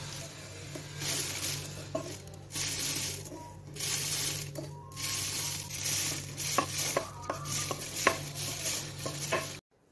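Dry toasted bread crumbs pouring through a paper funnel into a glass bottle, a hissing trickle that comes in several pours with short pauses, with a few light taps near the end. A steady low hum runs underneath.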